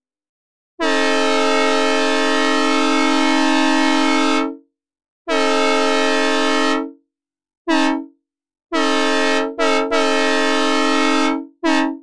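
Synthesized recreation of a Nathan M3 three-chime diesel locomotive horn, dry with no reverb, sounding a steady chord at fixed pitch: a long blast, a second shorter blast, a brief toot, then a long blast stuttered twice near its start, and a brief toot at the end.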